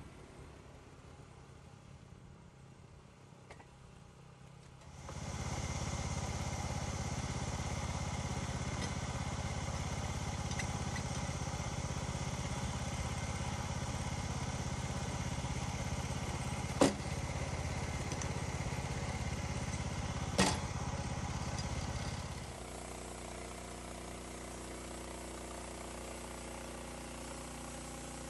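Portable bandsaw sawmill's engine throttled up about five seconds in, running steadily at speed, then dropping back to a lower idle near the end. Two sharp knocks come in between.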